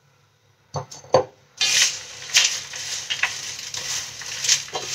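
Brief silence, then two sharp knocks about a second in. After that comes continuous rustling and crunching as crisp fried potato straws and peanuts are tossed by hand on a steel plate.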